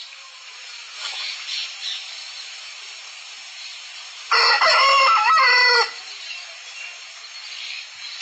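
Aseel rooster crowing once, about four seconds in: a loud crow lasting about a second and a half.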